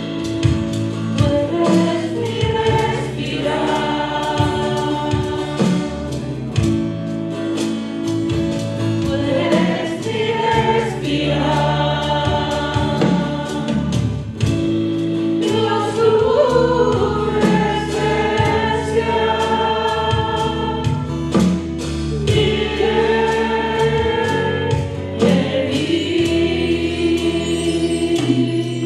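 Live church worship song: women singing into microphones over electric bass guitar and a steady beat.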